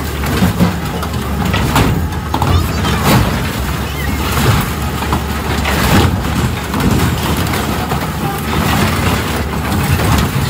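Diesel engine of a grapple-equipped material handler running steadily under load while its grapple tears and crushes the sheet-metal body of a school bus, with repeated crunching and banging of metal.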